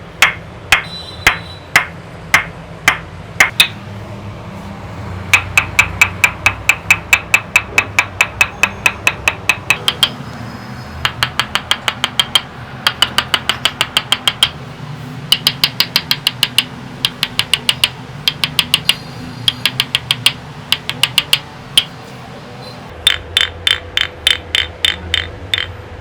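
Rhythmic hand tapping in a barber's head massage: a run of sharp slaps, slower at first, then about four or five a second in bursts with short pauses.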